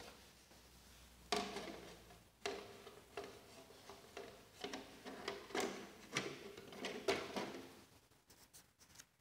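Irregular knocks and rattles of hard plastic parts being handled, each with a short ringing note. These fit the body shell of a vintage RC monster truck being fitted onto its chassis.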